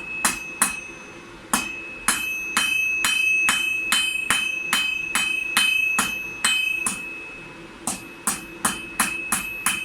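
Hand hammer striking hot steel on an anvil, about two blows a second with a short pause near the end, a high ringing tone lingering between the blows. The smith is rolling over the edges of the heated steel.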